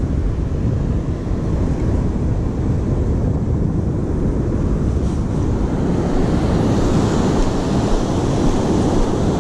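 Ocean surf breaking and washing up the beach under a steady low rumble of wind buffeting the microphone; the hiss of the wash grows near the end.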